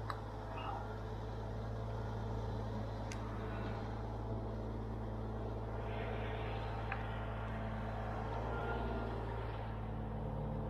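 Large diesel engine running steadily with a low, even drone, with a few faint clicks over it.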